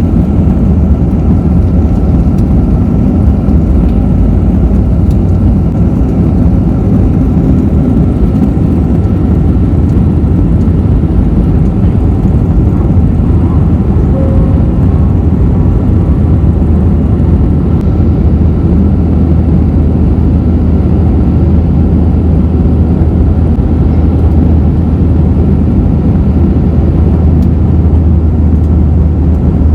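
Cebu Pacific airliner taking off: a loud, steady low rumble of the engines at takeoff power, with a faint thin whine held above it throughout.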